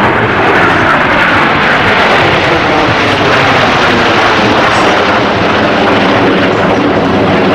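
Snowbirds' CT-114 Tutor turbojet jets flying past, loud and steady, their pitch falling as they pass.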